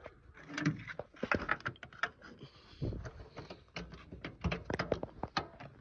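Camera handling noise: a run of irregular clicks, knocks and rubbing as the handheld phone is moved about and brushed against the truck's body.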